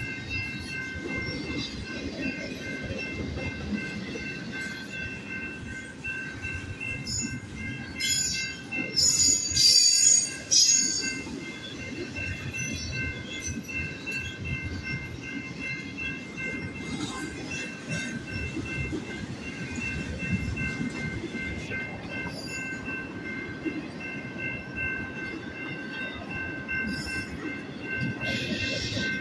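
BNSF double-stack intermodal freight train rolling past with a steady rumble of wheels on rail, while the grade-crossing bell keeps ringing. From about eight to eleven seconds in, loud high-pitched wheel squeal rises above the rumble.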